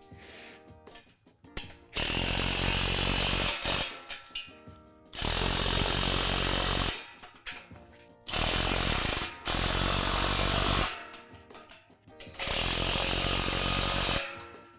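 Cordless power driver run four times in bursts of about two seconds each, driving bolts through the steel deck-support tubes of a playset frame. Faint background music is heard between the runs.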